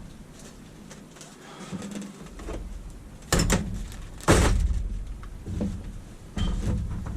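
Three sharp knocks, the first two about a second apart and the third two seconds later, over a low steady hum.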